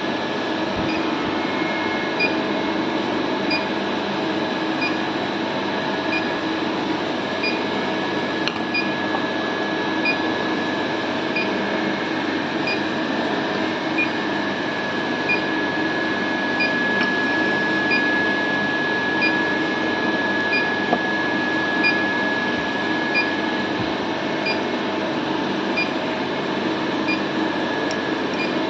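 Steady machine hum with a high whine, and a faint high tick repeating about every 1.3 seconds.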